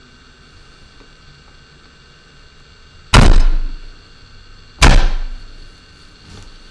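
Two loud thuds about a second and a half apart, each dying away over about half a second, like something hard struck or set down on a workbench.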